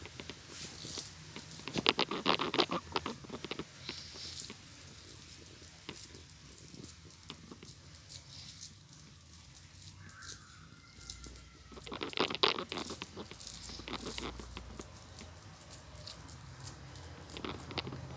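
Hands squeezing and patting raw minced meat into patties on a plate: wet, sticky squishing in bursts, loudest about two seconds in and again about twelve seconds in.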